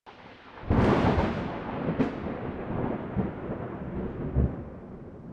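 A deep, thunder-like rumbling boom that starts suddenly under a second in and slowly dies away, with a few lower thuds within it.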